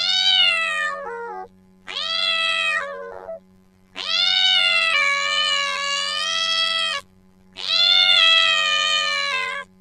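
Domestic cat meowing angrily: four long, drawn-out yowls in a row, the third the longest.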